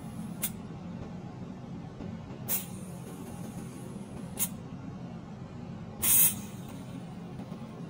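Butane gas hissing in short spurts as a refill canister's nozzle is pressed into a lighter's fill valve: three brief spurts, then a longer, louder hiss about six seconds in. A steady low hum lies underneath.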